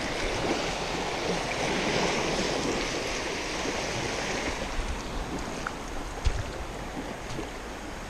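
Small waves lapping and washing over sand in shallow water at the shoreline: a steady rush of water. A light knock comes about six seconds in.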